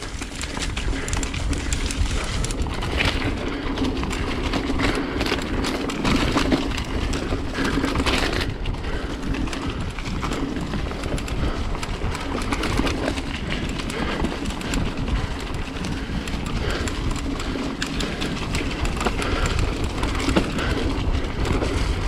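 Mountain bike ridden fast over rough dirt singletrack: tyres on the trail and the bike's chain and parts rattling and clattering over the bumps. The Box nine-speed drivetrain is sitting between gears after the rear derailleur was smashed on a log, and the rider says it doesn't sound good.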